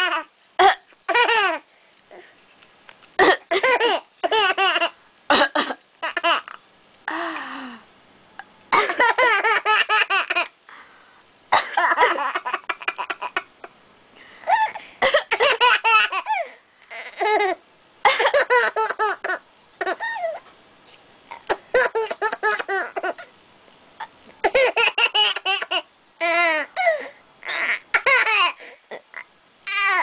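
A baby laughing hard in repeated bouts of gleeful belly laughs, each a quick run of pulses, with short sharp coughs between some of the bouts that set the laughing off.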